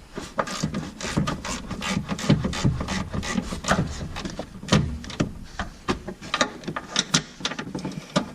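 A socket wrench clicking and scraping in irregular strokes as a stubborn suspension bolt is worked loose.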